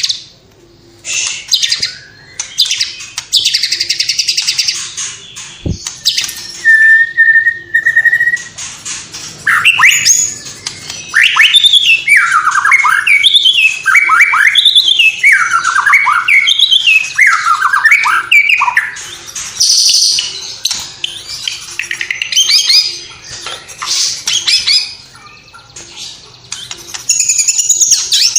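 White-rumped shama singing a loud, varied song: bursts of fast chatter, a single held whistle, then a long run of whistled phrases sweeping up and down, mixed with mimicked calls of other birds such as house sparrows and lovebirds.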